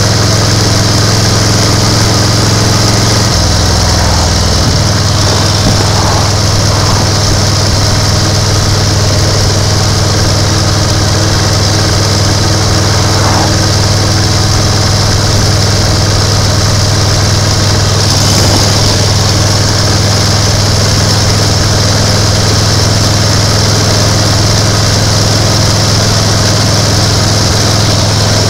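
1930 BSA 770 cc V-twin motorcycle engine running steadily while riding along at road speed, with a brief change in its note about four seconds in.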